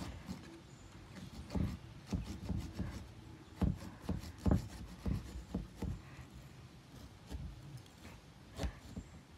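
Small serrated pumpkin-carving saw sawing through a pumpkin's rind in short, irregular strokes, with dull knocks as the pumpkin bumps against the wooden board beneath it.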